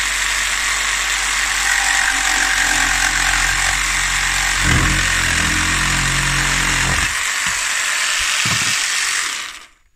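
Jigsaw cutting through a wooden board, its blade chattering steadily, then the saw stops near the end.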